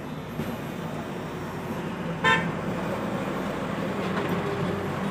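Steady road traffic in the background, with one short vehicle-horn toot a little over two seconds in.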